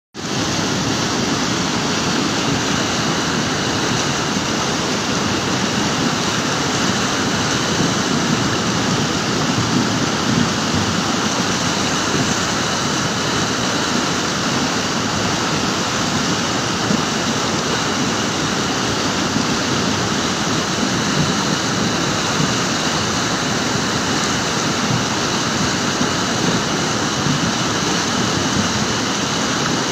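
The Melamchi River in flood, a torrent of muddy, silt-laden water rushing over its rocky bed: a loud, steady rushing noise.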